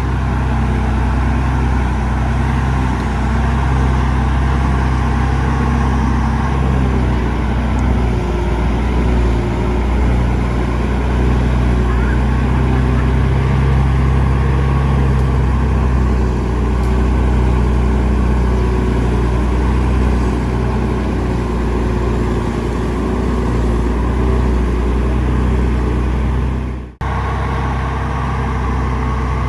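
Heavy diesel engine of earthmoving machinery running steadily under load with a deep, even drone. Near the end the sound briefly drops out and comes back.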